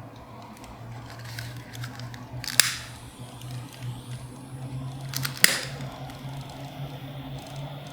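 Quiet handling of objects: light rustling and two sharp clicks, about two and a half and five and a half seconds in, over a steady low hum.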